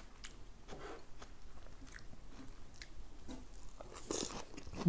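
A person chewing a mouthful of chicken stir-fry and lettuce, quietly, with small crunches. About four seconds in comes a louder, short noise as he leans in and takes another bite.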